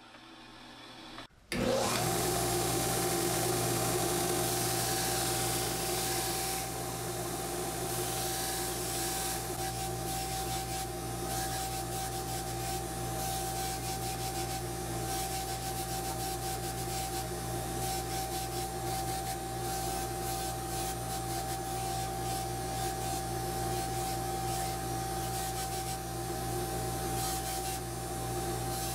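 About a second of a bandsaw cutting wood, then, after a sudden break, an electric belt grinder running with a steady whine as a wooden part is pressed and rubbed against its sanding belt.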